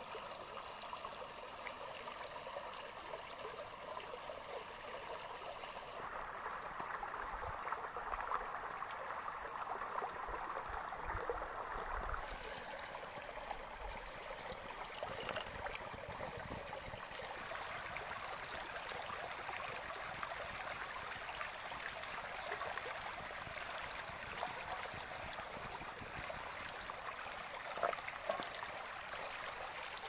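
A shallow mountain stream babbling steadily over stones, with a few faint clicks in the second half.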